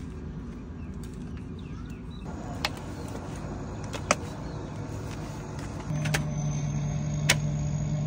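A steady low rumble, with a few sharp clicks as bamboo sticks knock against the metal tray while eels are worked through wood ash. A steady hum joins about six seconds in.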